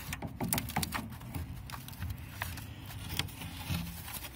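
Welded wire mesh being handled and crimped around corrugated plastic drainage pipe: irregular light metallic clicks and ticks over a low rumble of handling noise.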